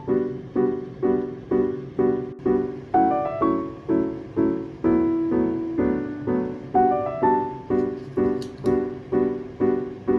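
Background piano music: a gentle, steady pattern of repeated notes, about two a second, each fading before the next.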